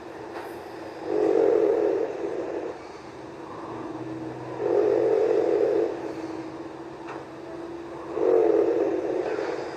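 A sleeping person snoring: three loud snores, each about a second long and about three and a half seconds apart, with a steady hum underneath.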